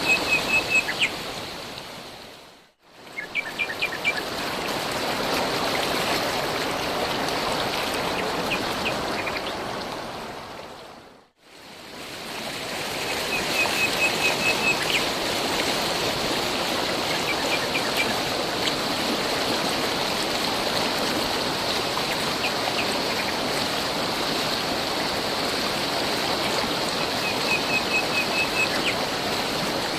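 Steady rushing of a stream of running water, with a small bird chirping in short rapid trills now and then. The sound fades out and back in twice, about 3 seconds in and about 11 seconds in.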